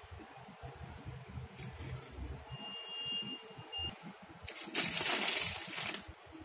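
Glass bangles clinking lightly as they are lifted off rangoli powder on a tiled floor. About five seconds in there is a louder rustling hiss lasting about a second and a half.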